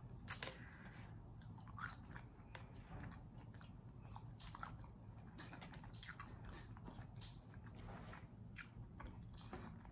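A person chewing food close to the microphone, with irregular small clicks and soft crunches of biting and mouth sounds.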